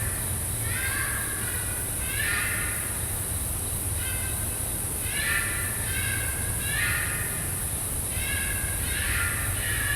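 An unknown wild animal calling again and again in the woods at night: harsh pitched cries, about one a second and some in quick pairs, over a steady high hiss. Locals who heard the recording took it for a bobcat, perhaps a mating call; to the recordist it sounded partly like a cat.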